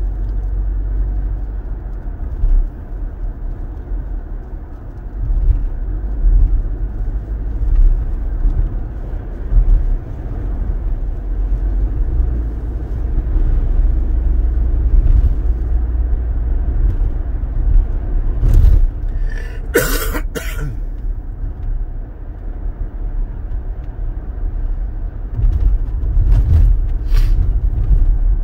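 Steady low rumble of a car driving, heard from inside the cabin on a wet road. A few short, sharp sounds come about two-thirds of the way through, and a few more near the end.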